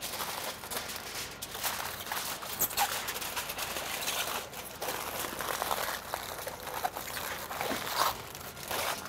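Aluminium foil crinkling and crackling in irregular bursts as gloved hands fold and crimp it tight around a pork shoulder.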